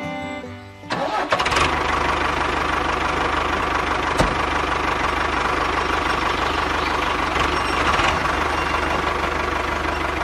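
Toy remote-control farm tractor's engine sound effect, a simulated diesel starting up about a second in and then running steadily with an even low pulse.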